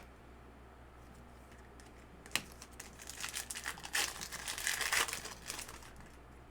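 Foil wrapper of a trading-card pack crinkling as it is torn open and handled. A sharp click comes about two seconds in, then a dense crackle of about three seconds.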